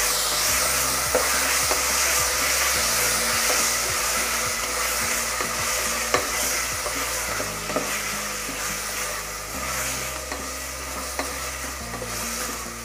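Potatoes in coriander paste sizzling in hot oil and ghee in a pressure cooker pot, stirred with a spatula that clicks and scrapes against the pot. The sizzle softens a little towards the end.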